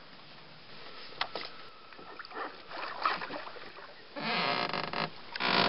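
Sounds of a small boat on the water: a few light knocks, then two loud bursts of rushing noise, one about four seconds in and another just before the end.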